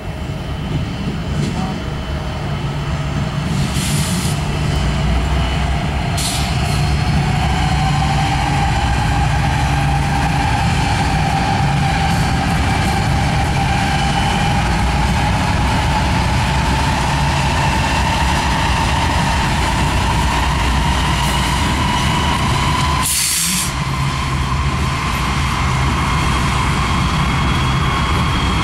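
BNSF GE diesel freight locomotives passing close by: a deep, steady engine rumble that grows louder over the first several seconds, with a whine that slowly rises in pitch. Short hisses at about four and six seconds in, and a louder one about twenty-three seconds in.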